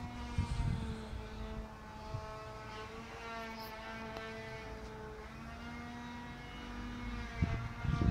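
A steady engine drone, its pitch wavering slightly, with a few low thumps near the start and end.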